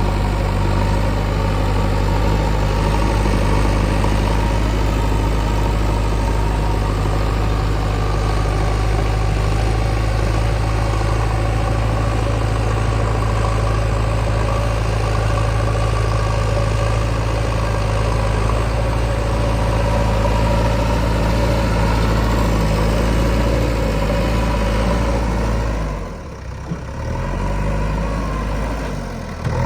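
Heavy diesel engine running steadily at a low, even speed. It drops away sharply about four seconds before the end and comes back just at the close.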